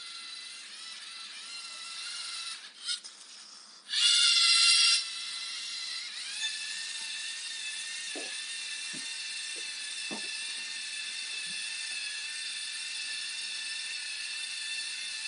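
LEGO Mindstorms robot's electric servo motors whining as it drives, a steady high whine of several tones that shifts pitch a few times. About four seconds in the whine turns much louder for about a second, and a few faint knocks follow.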